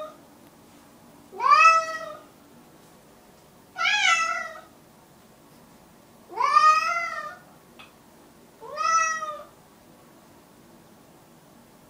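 A domestic cat meowing four times, about every two and a half seconds; each meow is long and rises then falls in pitch.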